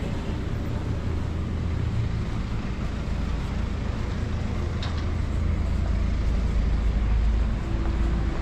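City street traffic noise: a steady low rumble of passing cars, swelling somewhat in the second half.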